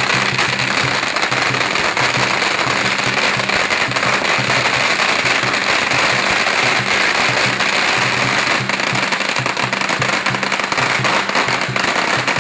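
A long hanging string of red firecrackers going off in a dense, unbroken rattle of small bangs.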